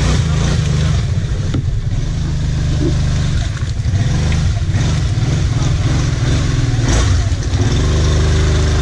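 ATV (quad bike) engine running hard and revving unevenly as the quad pulls through a deep muddy rut, with a brief drop in the engine note about three and a half seconds in.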